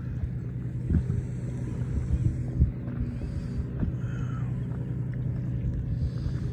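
A boat's engine running with a steady low hum, with short splashes of water about a second in and again around two and a half and four seconds.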